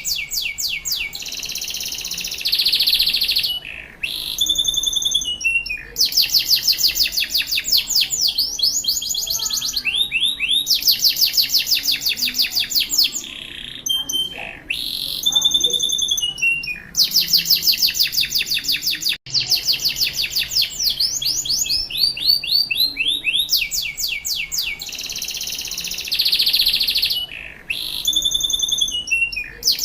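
Domestic canary singing continuously: long, fast trills and rolls of rapidly repeated high notes, broken by a few brief pauses.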